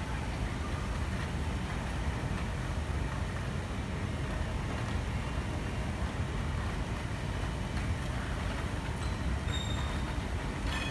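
Steady low rumble of a busy railway and tram station hall, with a tram standing at the platform rather than moving. A brief high tone sounds near the end.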